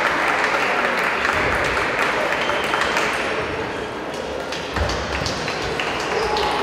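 Table tennis balls clicking off tables and bats, irregular and overlapping from several matches at once, over a steady background murmur of voices.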